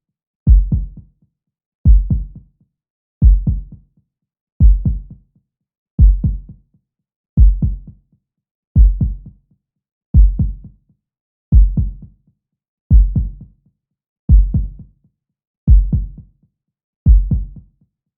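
Heartbeat sound effect: a slow, steady lub-dub double thump repeating about every 1.4 seconds, with silence between beats.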